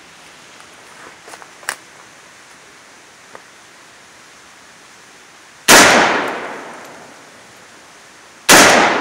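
Two shots from an AK-pattern rifle in 7.62x39, a little under three seconds apart. Each is a loud crack that echoes and fades over about a second. A few faint clicks of the rifle being handled come before them.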